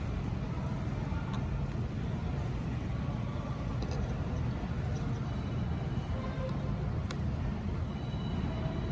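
A steady low background rumble with a few faint light clicks, small repair tools touching the iPhone's screws and metal plate.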